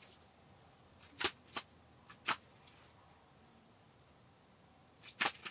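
A few short, sharp clicks over quiet room tone: three spaced out between about one and two and a half seconds in, then a louder cluster near the end.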